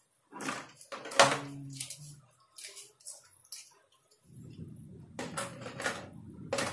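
Handling noise from unpacking a hair trimmer's box: a run of sharp clicks and knocks of plastic parts and cardboard, the loudest about a second in, then a steady low rustling rumble from a little past four seconds.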